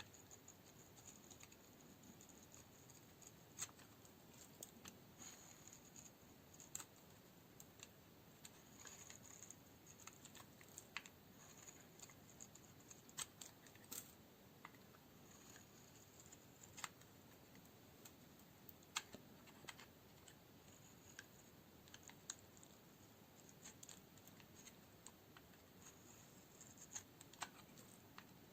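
Dry bar soap being cut into cubes, giving a run of crisp, irregular clicks and crackles over soft scraping, a few clicks standing out louder.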